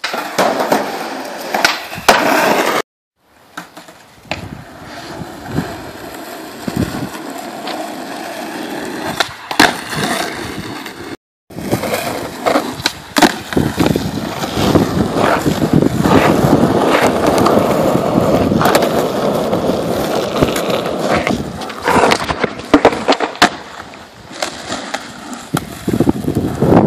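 Skateboard wheels rolling on rough asphalt, with several sharp clacks of the board hitting the pavement. The audio cuts abruptly a couple of times as clips change.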